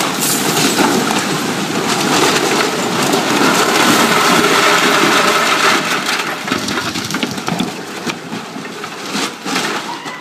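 Brick house collapsing: falling brickwork and rubble crashing and clattering, with many sharp cracks through it. It is loudest through the first six seconds and dies away toward the end as the debris settles.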